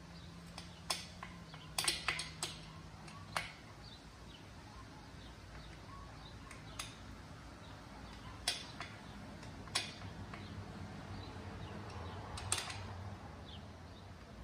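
Scattered metallic clicks and clinks of a wrench working the chain adjuster bolt on a dirt bike's swingarm as it is tightened, a few in quick succession early on and single clicks spaced a second or more apart after that.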